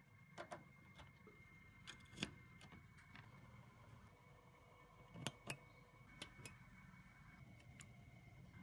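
Faint, scattered clicks and taps, about ten of them at irregular intervals, over a low steady hum and a thin high steady tone.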